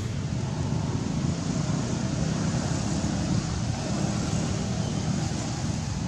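Steady low rumble with a hiss above it, outdoor background noise of the kind wind makes on a microphone, with no distinct events.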